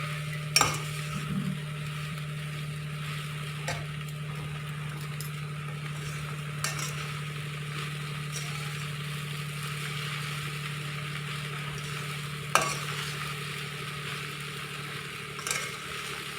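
Peas and spice mixture sizzling in a pan while being stirred so its water cooks off, with a few sharp knocks of the spoon against the pan. A steady low hum runs underneath and stops near the end.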